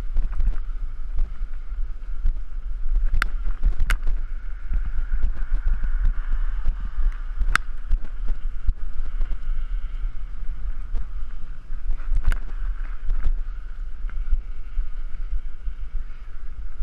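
Wind buffeting the microphone of a GoPro on a moving bicycle, a constant low rumble, with the bike rattling and clicking as it rolls over the sidewalk; a few sharper clicks stand out.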